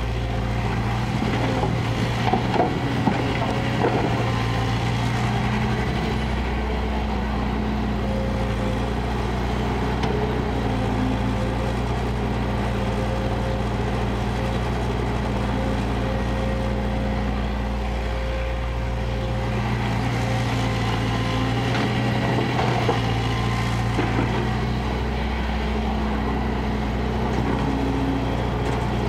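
Kobelco crawler excavator's diesel engine running under working load, its note shifting as the hydraulics swing and dig, with a few clunks about three seconds in.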